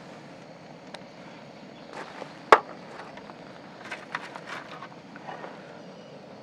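A single sharp knock about two and a half seconds in, then a short run of light clicks and clinks, over a steady background hiss.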